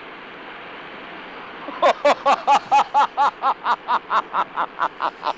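A man bursts into laughter about two seconds in: a quick run of 'ha-ha-ha' pulses, about four a second, loud at first and slowly tapering. Under it runs a steady rushing hiss.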